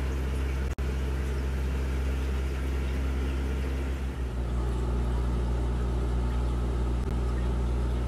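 Steady mechanical hum of an aquarium's internal filter pump, with a hiss of moving water. The sound cuts out for an instant just under a second in, and the hum shifts slightly in pitch about four seconds in.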